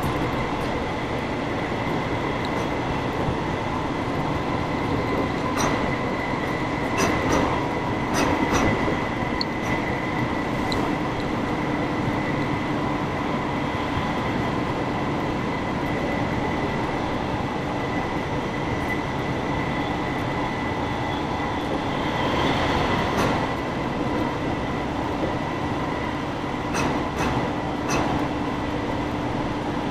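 Inside a Gyeonggang Line electric commuter train car under way: a steady running rumble with a constant hum and whine, broken by a few sharp ticks and knocks.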